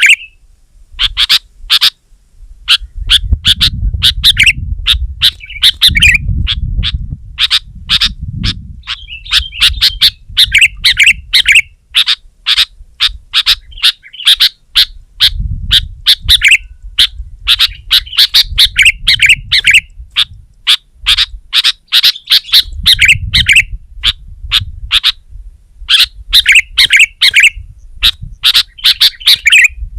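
Sooty-headed bulbul singing energetically: rapid runs of short, loud, chattering notes in repeated phrases with brief pauses between them. A low rumble sits underneath at times.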